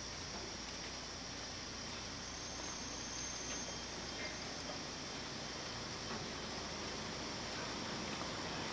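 Steady outdoor background: a continuous high-pitched insect drone over a low hum, with no distinct events.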